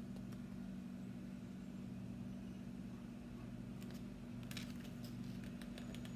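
Steady low background hum, with a few soft clicks and rustles of a hardcover picture book being lowered and handled about four and a half seconds in.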